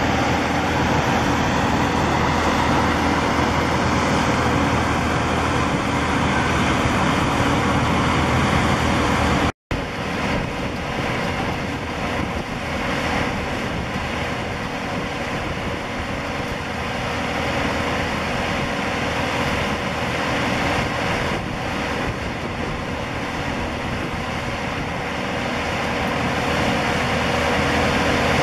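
Airbus A321 jet engines running as the airliner comes in to land: a steady, loud rush with a thin whine. The sound cuts out abruptly about ten seconds in, and then a Boeing 747-400's four engines are heard on approach, the rush growing louder near the end as the jumbo closes in.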